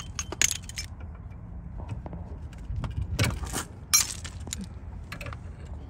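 Metal brake caliper parts clinking and tapping as they are handled while the caliper slide bolt is being worked: a few sharp metallic clicks, the loudest about three and four seconds in.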